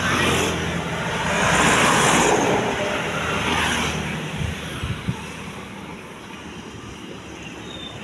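Street traffic: a vehicle passing by with a rushing sound that swells to a peak about two seconds in and fades out by four seconds. A couple of low knocks follow about five seconds in.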